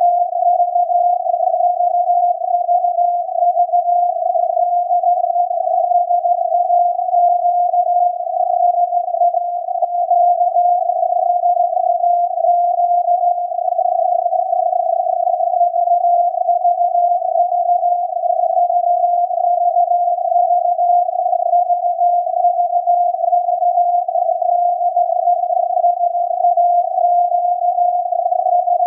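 SAQ's 17.2 kHz Morse transmission from the Alexanderson alternator, received on a software-defined radio and heard as a beat tone near 700 Hz inside a narrow band of filtered static hiss, sending the automated punched-tape 'VVV de SAQ' message.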